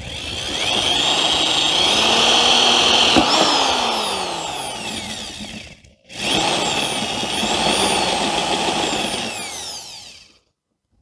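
Power drill with a 3/4-inch bit boring a hole, in two long runs with a brief stop about six seconds in; the motor's pitch rises and falls as the bit loads up. It stops a second before the end.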